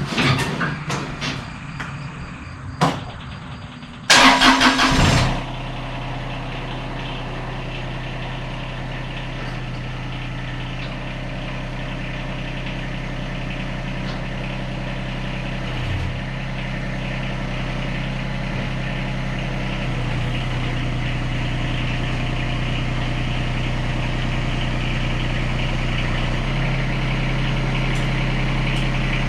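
A few clicks, then the Yanmar SA221 compact tractor's diesel engine is cranked by its starter for about a second and catches. It settles into a steady idle, and the engine note shifts slightly a few times later on.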